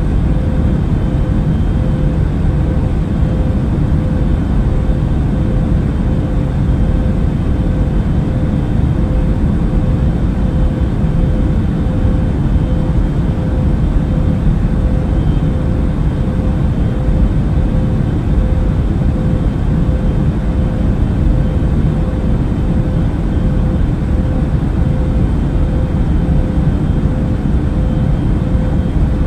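Airplane cabin noise in flight: a steady, even rumble of engines and airflow with a thin constant hum over it, unchanging throughout.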